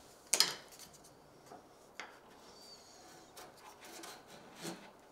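A thin wooden bead strip knocking and rubbing against a wooden case as it is fitted into place by hand: a sharp knock near the start, a click about two seconds in, then a few lighter taps and scrapes.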